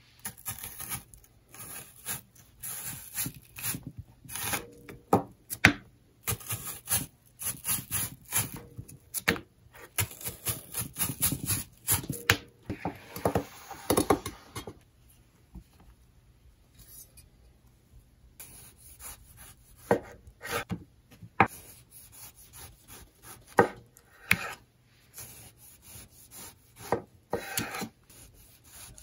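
Chef's knife slicing a red onion and then a tomato on a bamboo cutting board: crisp, irregular cuts, each ending in a knock of the blade on the wood. About halfway through there is a longer scraping stretch.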